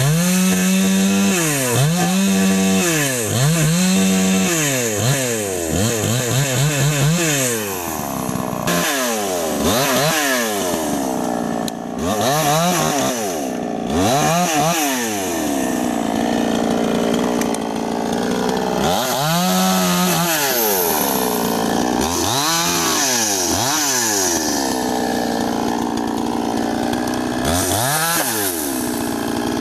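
Two-stroke chainsaw running hard while cutting felled sengon branches. The throttle is opened and released over and over, so the engine pitch rises and falls about once a second at first. Later it swings more slowly, with stretches held at a steady pitch.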